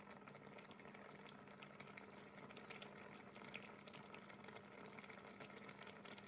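Massaman beef curry in coconut milk simmering on low heat: faint bubbling with scattered small pops, over a steady low hum.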